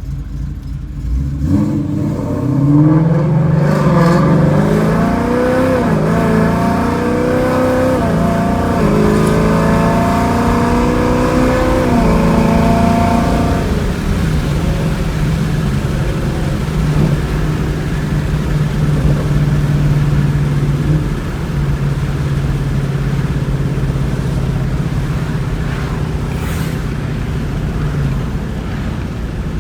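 Ford Mustang GT's 5.0 V8 running through long-tube headers and a Borla catback exhaust. It idles briefly, then pulls away hard, the exhaust note rising and dropping back with each of several upshifts, and then settles to a steady cruise.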